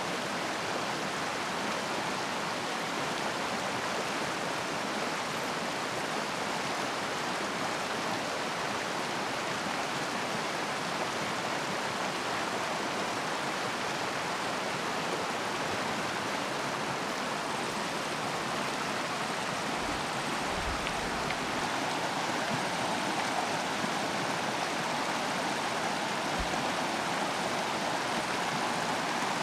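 A stream running over rocks, a steady, even rush of water that grows a little fuller in the last third, with a couple of faint low bumps.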